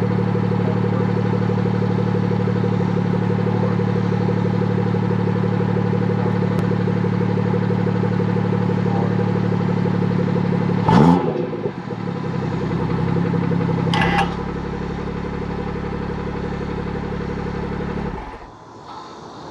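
BMW 340i turbocharged straight-six idling during cold-start warmup, heard at the exhaust from under the car. About eleven seconds in, the idle steps down with a short metallic clatter, and another sharp click follows about three seconds later, as the exhaust flap valve actuator moves. The engine sound cuts off near the end.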